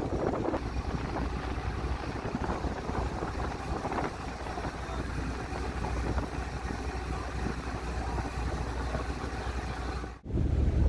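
Ferry engine running with a steady low rumble, and the wake's water rushing alongside the hull. The sound drops out for an instant near the end.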